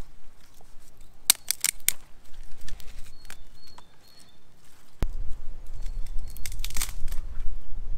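Dry twigs snapping and crackling as kindling is fed onto a small newly lit stick fire, in a quick cluster of sharp cracks about a second and a half in and again near the end. A low rumble starts suddenly about five seconds in, and a bird chirps faintly a few times.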